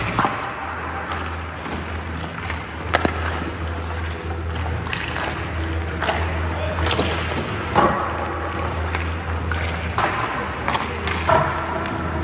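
Ice hockey stick clacking on pucks and skates scraping on the ice, a sharp hit every second or two, over background music with a steady low beat.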